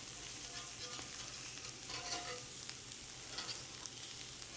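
Ahi tuna burger patties sizzling steadily on a hot ridged grill plate, with scattered clicks and a brief scrape of a metal fish spatula as the patties are turned.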